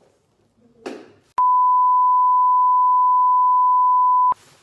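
Steady electronic beep: a single pure tone held for about three seconds, switching on and off abruptly.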